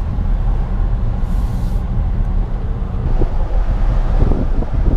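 Steady low rumble of wind and road noise inside a Rolls-Royce's cabin as it drives with the windows open.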